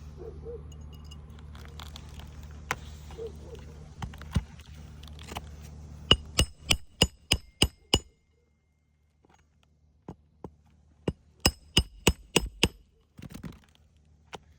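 Two quick runs of sharp metallic clinks, about five a second, each strike ringing briefly; a steady low hum behind them cuts out about eight seconds in.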